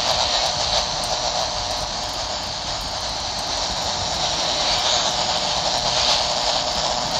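Steady hiss of static from a Uniden handheld CB radio's speaker.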